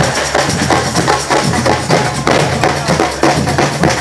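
A marching band playing, with drums beating a fast, steady rhythm over low held notes.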